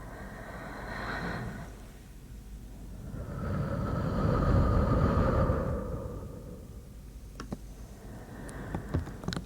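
Two long breaths close to the microphone, the second slower and louder, followed by a few soft mouth clicks near the end.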